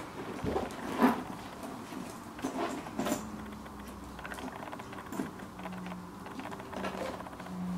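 Handling noise of a large Louis Vuitton Keepall 55 duffel bag in coated canvas with leather handles and metal hardware: several knocks and rustles as it is lifted and its handles and strap are moved, the sharpest knock about a second in.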